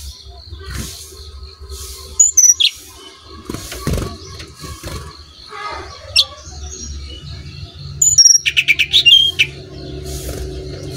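Brown-chested jungle flycatcher singing in full voice: sharp, high sliding notes about two seconds in, then a fast, loud run of rapid notes about eight seconds in, with softer calls between.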